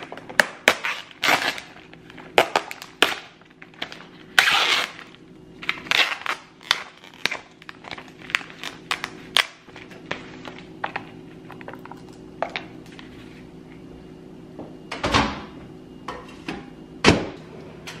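Black plastic meal tray handled on a stone countertop: crinkling and crackling with many small clicks and taps as its film lid is peeled back, over a faint steady low hum. Two louder knocks come near the end as a kitchen drawer is opened.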